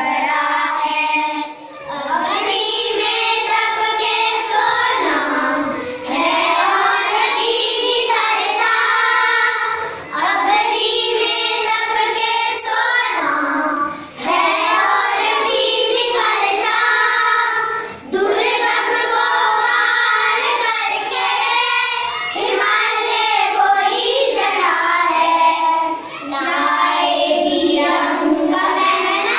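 A group of young schoolchildren singing a song together without instruments. The song comes in phrases, with short breath pauses about every four seconds.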